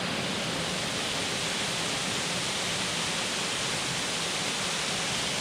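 Waterfall falling into the gorge below, a steady rush of water.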